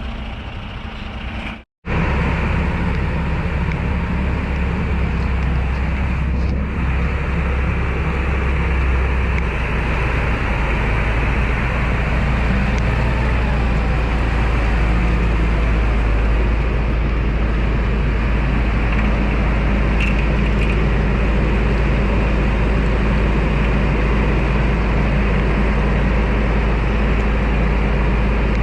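Heavy equipment diesel engine running steadily at constant speed, a loud low rumble. It follows a brief dropout about two seconds in.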